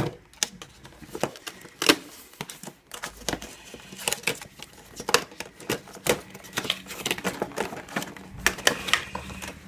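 Cardboard phone box being opened by hand, its end flap pulled back: irregular sharp clicks, taps and crinkles of the cardboard and plastic packaging.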